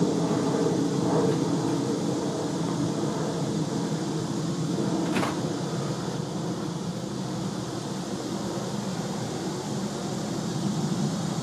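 Steady low rumbling background noise with a fainter hiss above it, and a single brief tick about five seconds in.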